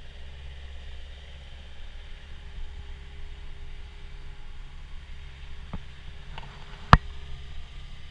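Caterpillar 289D compact track loader's diesel engine idling steadily, with a single sharp click about seven seconds in.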